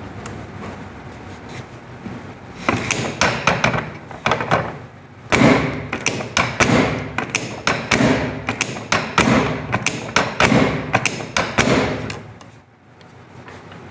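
Chiropractic drop table thudding repeatedly as its sections are thrust down and drop, in quick sharp knocks. A first cluster comes about three seconds in, then after a short pause a steady run of knocks follows that stops near the end.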